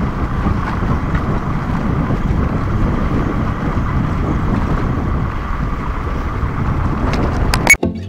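Riding noise from a moving scooter: wind rushing and rumbling over the microphone, with the scooter's running underneath in a steady, even wash. Near the end it cuts off abruptly and music starts.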